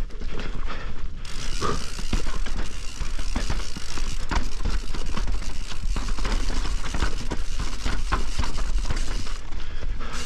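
Enduro mountain bike descending a wet, rough trail at speed: a steady rushing noise of tyres and riding, with frequent sharp knocks and clatters from the bike over the uneven ground.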